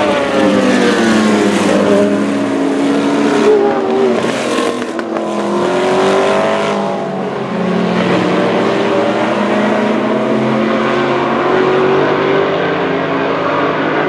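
Group C sports-prototype race cars passing one after another at high revs. The engine pitch falls as a car goes by early on, then more engines shift and glide as the next cars run through the curve.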